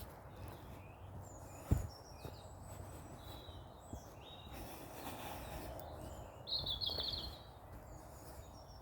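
Small birds singing in woodland: thin, high calls throughout, with a louder rapid trill about three quarters of the way through. A single low thump comes about two seconds in.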